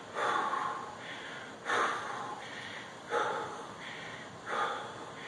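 A man breathing hard: four heavy breaths, about one every one and a half seconds, each starting sharply and fading. He is out of breath from fast exercise and is catching his breath while holding a front plank.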